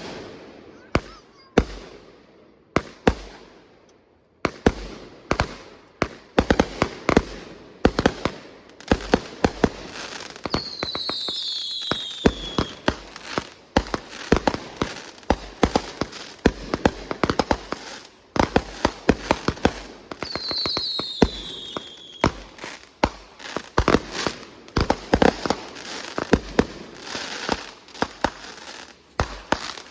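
Consumer fireworks going off in rapid succession: a dense string of sharp bangs and crackling reports, several a second. Twice, about a third and two thirds of the way in, a high whistle falls in pitch over the bangs.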